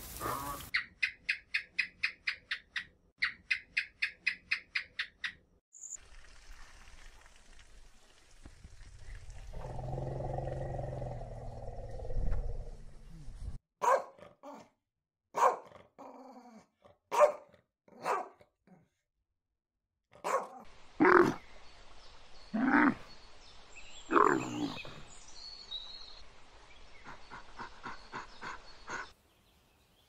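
A string of animal sounds: first a fast run of high, evenly spaced calls, then a low rumbling growl, then a dog barking in short, sharp barks, followed by a few longer, louder calls.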